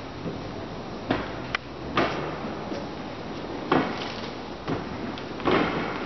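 Tennis rally on an indoor court: a ball struck back and forth by rackets and bouncing, a run of sharp pops roughly a second apart, each followed by a short echo from the large hall.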